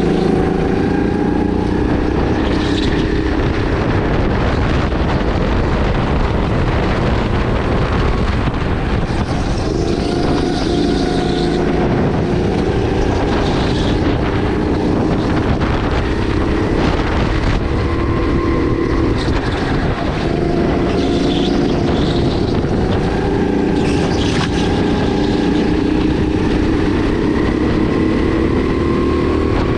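Sodi RX8 kart's 270cc LPG-fuelled engine running hard on track, its note climbing for a few seconds and then dropping back, several times over, as it accelerates down straights and lifts for corners.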